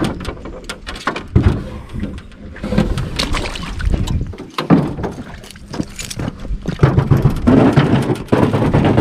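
Small boat's hull dragging and scraping over a grooved concrete boat ramp as it is hauled out of the water by hand, in uneven grinding pushes with knocks, loudest near the end.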